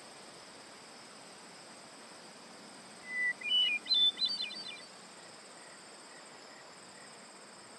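A songbird sings one short phrase of quick notes that climb in pitch, about three seconds in, over a faint steady high insect drone of forest ambience.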